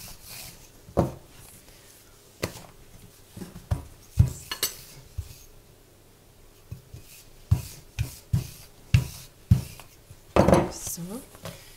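Wooden rolling pin knocking and thudding on a kitchen worktop while yeast dough is rolled out, about a dozen irregular knocks with soft rolling and rubbing between them.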